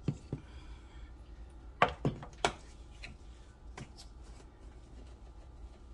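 A paprika container being shaken and tapped while sprinkling seasoning: three sharp clicks close together about two seconds in, then a few lighter ticks.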